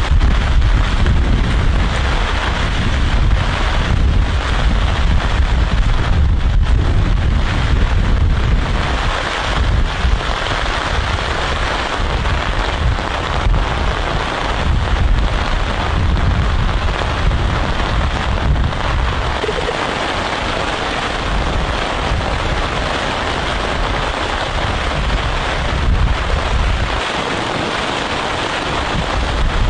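Storm: steady heavy rain with gusting wind, and a low rumbling from wind buffeting that is heaviest in the first ten seconds or so.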